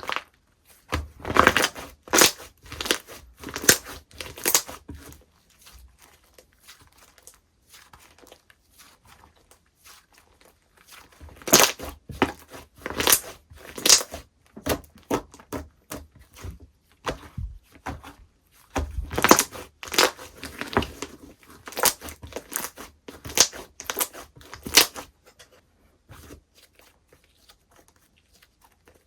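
Slime being squeezed and pressed by hand, crackling and popping in three spells of dense clicks separated by quieter pauses.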